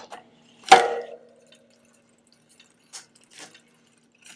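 Bicycle chain and drivetrain being handled: one sharp metallic clack about a second in with a short ringing tail, then a few faint clicks, as the chain is set to lock its master link.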